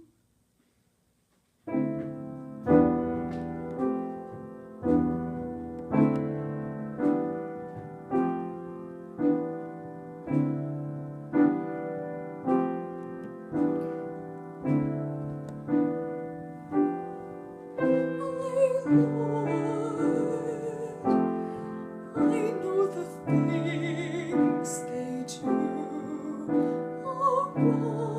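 Piano playing a slow, steady chord accompaniment, about one chord a second, after a short silence. Around eighteen seconds in, a singing voice with vibrato comes in over the piano.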